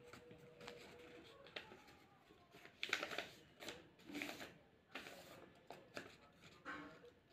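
A sheet of paper being folded and creased by hand: faint rustling, with a handful of short crinkles between about three and seven seconds in.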